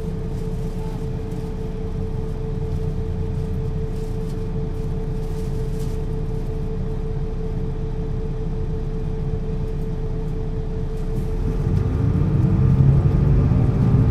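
MAN NL 223 city bus's diesel engine idling steadily, with a steady hum above the rumble. About twelve seconds in, the engine note rises and grows louder as the bus accelerates.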